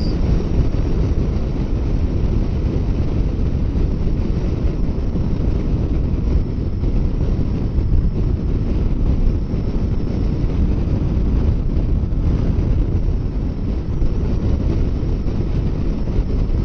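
Steady wind rush over the microphone of a motorcycle riding at highway speed, a Kawasaki Versys 650, with the wind drowning out the engine.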